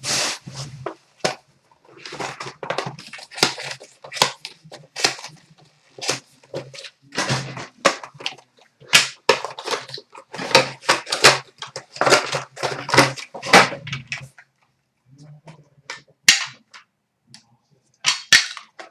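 Rustling, crinkling and tearing as trading card boxes and packs are ripped open by hand, a run of short, sharp crackles in clusters with a brief pause near the end.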